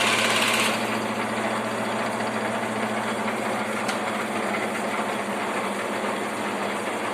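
16E16KP lathe running steadily, an even mechanical hum from its motor and gearing, a little louder and hissier for the first split second.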